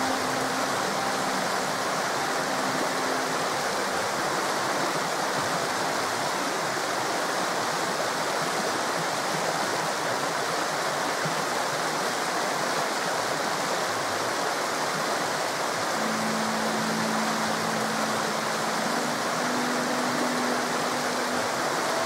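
River water flowing over rocks in a steady, even rush. Faint held low notes of soft background music sound underneath in the first few seconds and again in the last several seconds.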